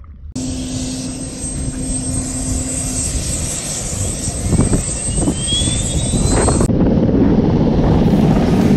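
Helicopter noise: a UH-60 Black Hawk's turbine and rotor sound, with a steady hum at first and a thin rising whine in the middle. From about seven seconds in, louder, steady rotor noise from a helicopter hovering overhead during a hoist.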